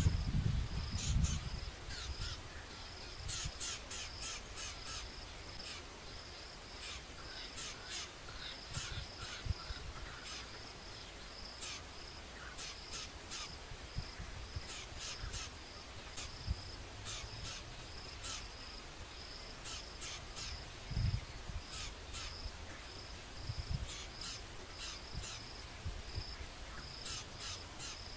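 Outdoor grassland ambience: a steady high insect whine with scattered short, high-pitched chirping calls, over a low wind rumble with a few dull bumps.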